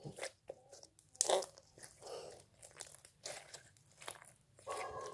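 Hands squeezing and kneading soft, glossy slime, making a string of irregular short squishing and popping sounds, the loudest about a second and a half in.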